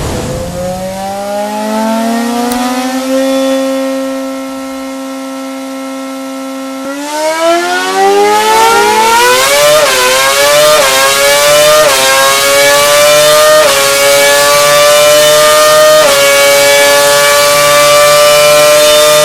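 Renault Formula One engine running on test: the revs rise quickly, hold steady for several seconds, then climb hard. They then go up in a string of steps, each a short dip and recovery, before holding at high revs.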